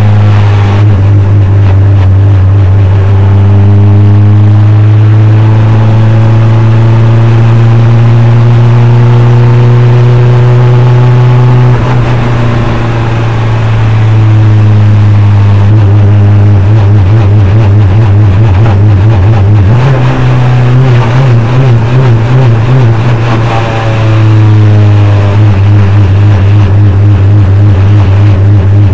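NP-01 prototype race car's engine running hard, heard loud from inside the cockpit. It holds a steady pitch, dips briefly about twelve seconds in, runs with an uneven pulsing for several seconds past the middle, then steadies again near the end.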